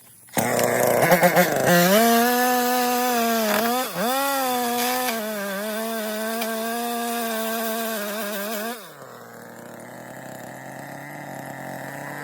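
Chainsaw starting up and running at high revs, its pitch dipping sharply about four seconds in, then dropping to a lower, quieter idle about nine seconds in.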